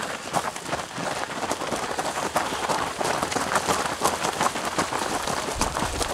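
Footsteps of many runners on a gravel path as a pack jogs past: a dense, irregular patter of footfalls, busiest around the middle.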